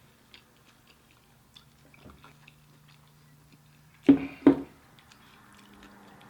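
Close-miked chewing and wet mouth clicks of someone eating restaurant food. About four seconds in, two brief, much louder sounds come half a second apart.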